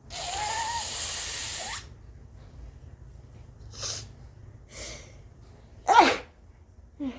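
A person blowing their nose hard into a tissue for nearly two seconds, with a wavering honk-like tone through the nose, then two short breaths and a sharp, loud sneeze about six seconds in. A brief voiced sound follows near the end.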